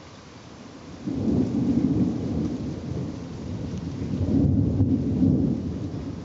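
A thunderclap breaks in suddenly about a second in, then rolls on as a deep rumble that swells twice and fades near the end, with rain falling throughout.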